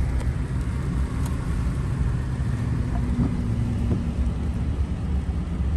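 Inside a car's cabin while driving: a steady low engine and road rumble.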